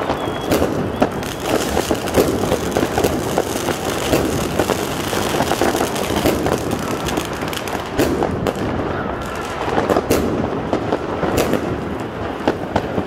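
Dense, continuous crackling and banging of many New Year's fireworks and firecrackers going off at once, with several louder bangs in the second half.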